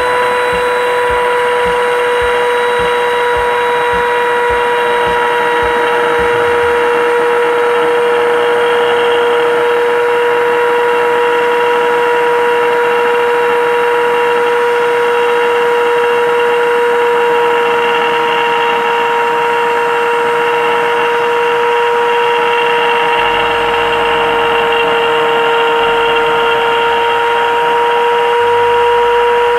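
Handheld mini rotary grinder running at a steady high whine while its bit cuts through PVC pipe, with a gritty rasp of the cut under the whine.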